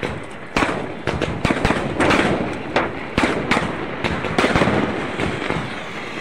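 Fireworks going off: a string of sharp bangs at irregular intervals, roughly two a second, over a continuous hiss of burning sparks.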